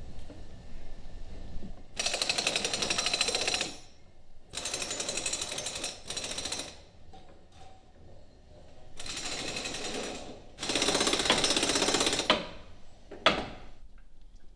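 A handheld power tool driven into the heavy timber of a boat's frames in four bursts of about one and a half to two seconds each, each with a fast hammering rattle, the last burst the loudest. A single sharp knock follows near the end.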